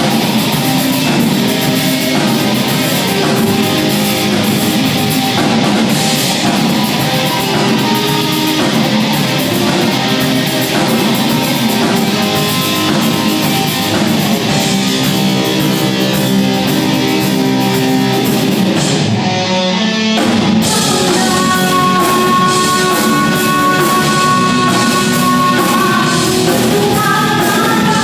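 Live rock band playing: electric guitars, bass, drum kit and keyboard, with a woman singing. About nineteen seconds in the cymbals and drums drop out for a moment, then the music goes on with long held notes.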